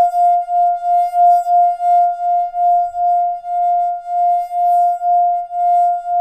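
A wine glass singing: one steady, pure note with a fainter overtone above it, held without dying away and swelling evenly about three times a second, as when a fingertip circles the glass's rim.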